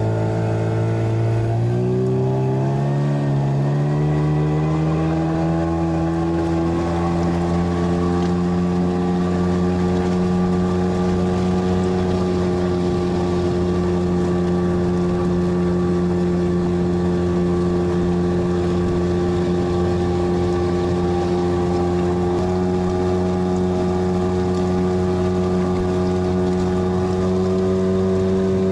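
Boat's outboard motor running under way, its pitch rising over a couple of seconds as it speeds up, then running steadily at cruising speed.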